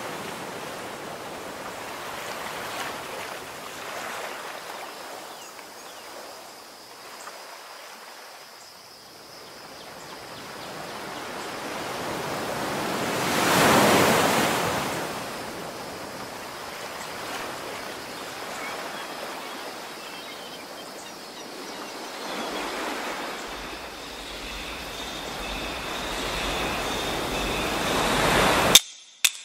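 Ocean surf, a steady wash of waves that swells into one big surge about halfway through. Near the end a faint high tone builds over it, and then it cuts off abruptly with a sharp click.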